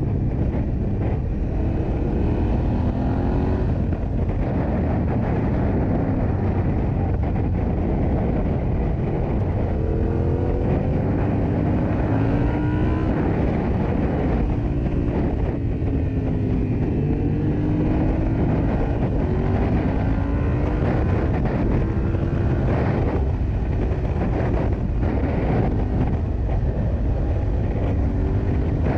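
Yamaha Ténéré 700's parallel-twin engine under way, its revs rising and falling repeatedly through gear changes, over a steady heavy rumble of wind.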